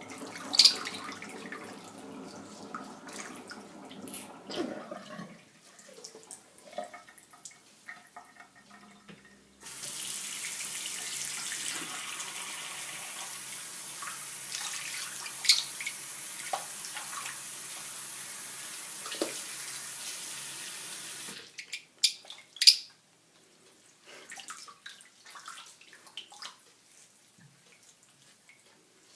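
Tap water running into a sink, turned on about ten seconds in and shut off sharply about twenty-one seconds in, with a few short, sharp high calls from a pet parrotlet.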